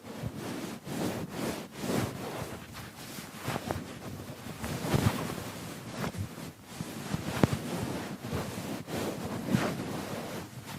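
Irregular scrubbing and rubbing strokes on a computer keyboard as it is being cleaned, with a few sharper knocks along the way.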